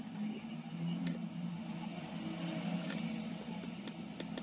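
Steady low hum, like a motor running, with light clicks and taps of small phone parts and tools being handled: one about a second in and several close together near the end.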